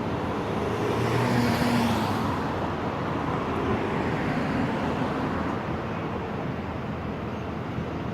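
Road traffic noise: a steady wash of tyre and engine sound, swelling as a vehicle passes a second or two in, then easing off.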